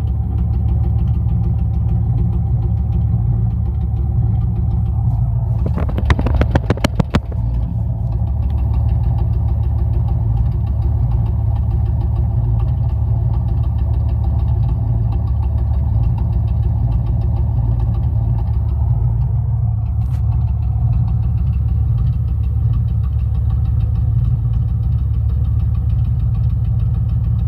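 Idling 1994 Chevrolet Camaro LT1 5.7-litre V8 with a misfire from a burnt-through spark plug wire. About six seconds in there is a quick run of sharp snapping clicks, and one more click near the end.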